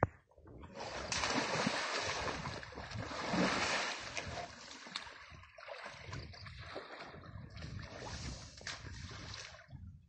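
Asian elephant splashing about in a muddy pool: water sloshing and splashing around its body, with short sharp splashes, starting about a second in and stopping just before the end.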